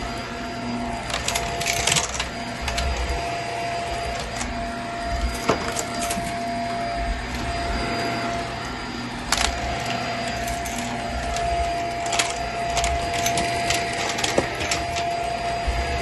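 Vacuum cleaner running with a steady whine, its floor head pushed back and forth over carpet with the brushroll mostly off, while scattered debris crackles and clicks as it is sucked up.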